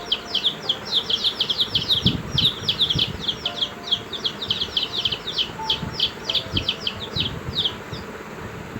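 An animal chirping: a rapid run of short, high, downward-sweeping chirps, about four to five a second, that stops about a second before the end.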